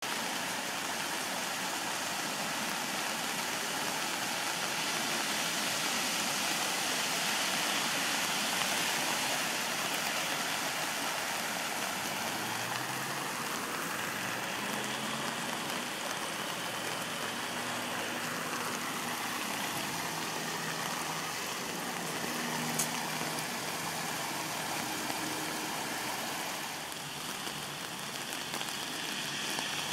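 Steady rush of water from an overflowing sewer flooding the street. Through the middle, a vehicle engine runs at a low, steady pitch, and there is a single sharp click near the end.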